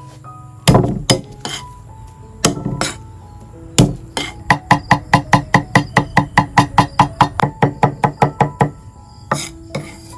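Knife chopping food on a cutting board: a few heavy single chops, then a quick even run of about twenty chops at four or five a second, with soft background music underneath.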